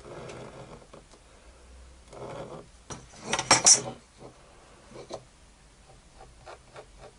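A small plywood piece and tools handled on a workbench: light rustling, then a short loud scraping clatter about three seconds in, followed by a few light knocks and clicks.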